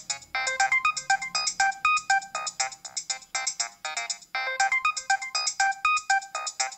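Nokia 7250i mobile phone playing a ringtone: a fast tune of short, bright electronic notes, with the same phrase heard twice.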